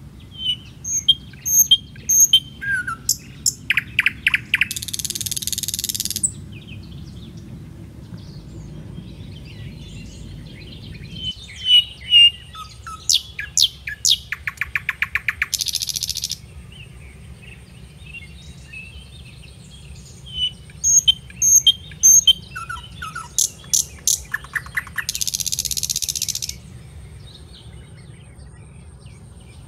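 Birds chirping and trilling in a short sequence that repeats three times, about every ten seconds, each round ending in a rasping buzz of about a second and a half, over a steady low rumble.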